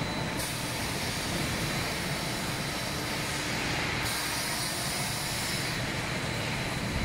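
Steady running noise of an automatic sheet-metal cutting and stacking line: a continuous rumble and hiss with no distinct impacts. The hiss steps up and down abruptly a few times.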